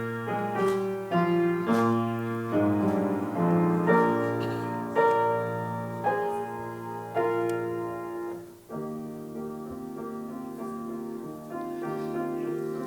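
Piano playing a bridge of chords between carols in a medley, each chord struck sharply and left to ring for about a second. After about eight seconds the playing turns softer, with longer held chords.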